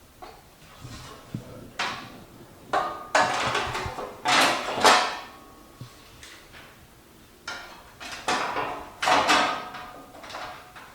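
Clatters and scrapes of hard plastic and metal parts as the fender's clips are worked loose and the parts handled, in uneven bursts with a few louder rattles about halfway through and again near the end.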